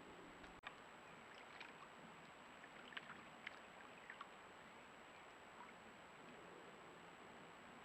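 Faint steady rush of a stream running high after heavy rain, with scattered small clicks and ticks in the first half and a thin steady high tone underneath.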